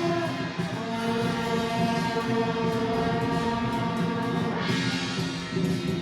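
Procession band music: loud wind instruments hold long notes that change pitch every second or two, over continual drum and percussion strokes.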